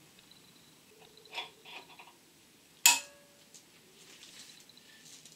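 Small metal clicks and scrapes of a threaded fitting being handled in an air compressor's cylinder head, then, about three seconds in, a single sharp metallic snap with a brief ring as locking pliers clamp onto the fitting.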